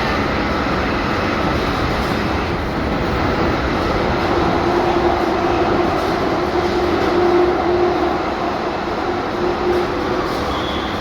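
London Underground 1996 Tube Stock train running at speed, heard from inside the carriage: a steady rumble of wheels on rail. A humming tone comes and goes through the middle, and a brief high squeal sounds near the end.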